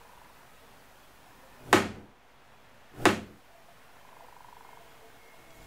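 Hammer striking the wooden roof of a cuckoo clock twice, a little over a second apart, each knock ringing briefly.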